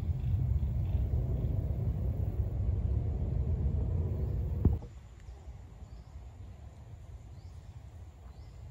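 Low, uneven rumble that cuts off abruptly with a click a little past halfway, leaving a quiet outdoor background with a few faint high chirps.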